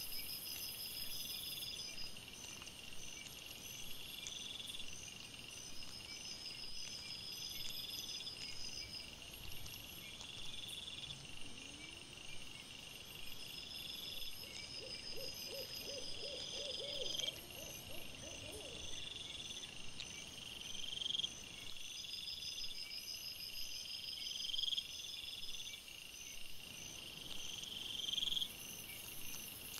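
Night chorus of cricket-like insects: high chirps repeating every couple of seconds, with shorter pulsed trills between them. About halfway through, a short run of rapid, lower pulses.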